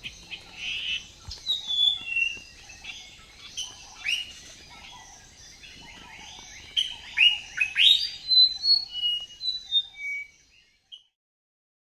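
Small birds chirping: many quick rising chirps in clusters, busiest in the second half, cutting off suddenly near the end.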